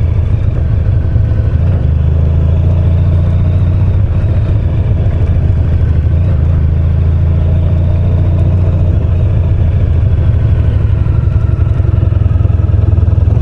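Honda VFR1200X's V4 engine running steadily at low speed while the motorcycle rolls slowly across a parking lot.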